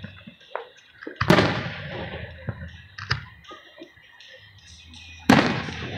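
Aerial firework shells bursting: two loud bangs about four seconds apart, each trailing off, with smaller pops and crackles in between.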